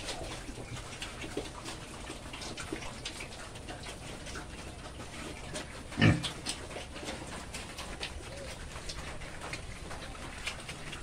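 Pigs eating eagerly at a feed trough: many small, quick chewing and smacking clicks, with one louder sudden sound about six seconds in.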